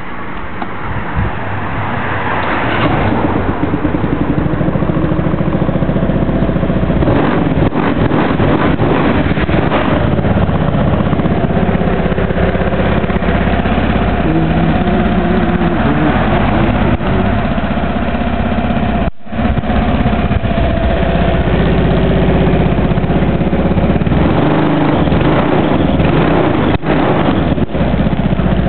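Honda Fusion scooter's single-cylinder four-stroke engine started on the key about a second in, then idling steadily: a used engine shown to run.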